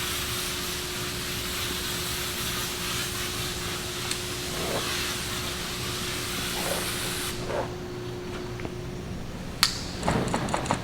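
Steady spraying hiss that cuts off suddenly about seven seconds in, followed by a sharp click and a few light knocks near the end.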